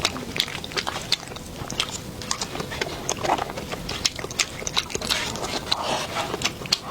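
Close-miked eating sounds: wet chewing with many quick, irregular lip smacks and mouth clicks.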